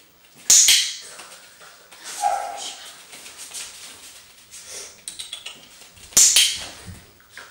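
A training clicker clicks sharply about half a second in and again near the end. In between, a puppy gives a short whine.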